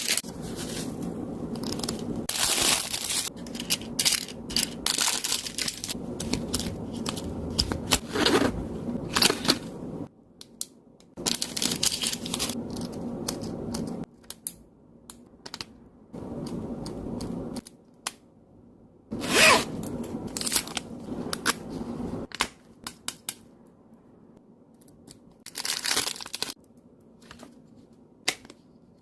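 Plastic parcel packaging being handled, crinkled and torn open by hand in irregular bursts, with short pauses between them.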